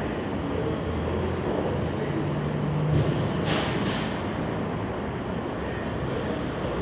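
R188 New York City Subway 7 train standing at the station, its equipment giving a steady rumble. A low hum steps up in pitch in the first few seconds, and there is a short hiss about three and a half seconds in.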